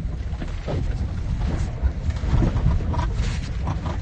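Low road rumble inside the cab of an electric Tesla Cybertruck driving a rough off-road trail, with scattered knocks and rattles as the truck is jostled.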